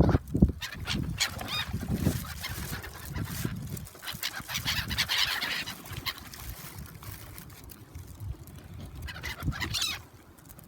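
A flock of gulls calling noisily over one another, the chorus thickest about halfway through, with a few low thuds at the start.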